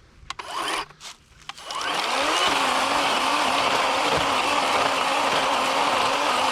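A few handling clicks, then a Worx 40-volt cordless electric chainsaw spins up in a quick rising whine about two seconds in and runs steadily at full speed.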